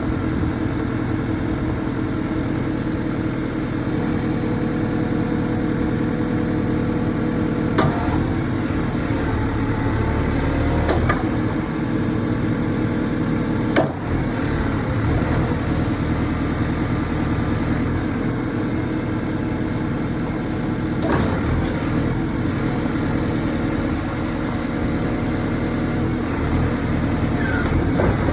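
JCB 3CX backhoe loader's diesel engine running steadily, with a few sharp knocks or clanks along the way.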